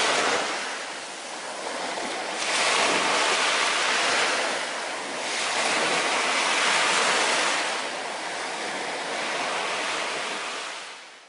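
Sea waves breaking and washing on a shore, swelling and ebbing about four times, then fading out near the end.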